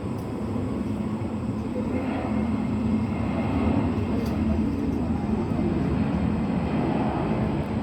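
Jet airliner engines rumbling from a takeoff or landing nearby: a steady, deep roar that slowly swells.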